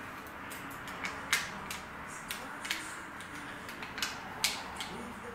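Small sharp clicks and taps of hand tools and tiny parts on a repair mat during the disassembly of an iPad mini 4, about ten at an irregular pace, over a steady faint hum.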